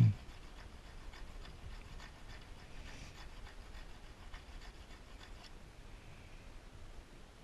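Brazed carbide lathe tool bit being rubbed back and forth on a diamond sharpening stone by hand: faint, irregular scraping strokes that stop a little over five seconds in.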